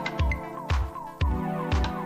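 Electronic background music with a steady beat, a bass kick about twice a second under sharp percussion hits and held synth notes.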